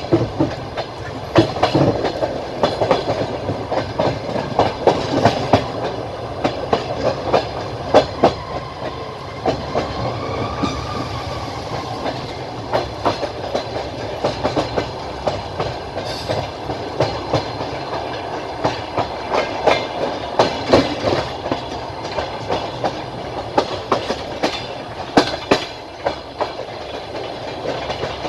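Wheels of a moving train clattering over rail joints: an irregular run of sharp clicks over a steady rolling rumble, heard from aboard the train. A faint brief whine rises and falls about ten seconds in.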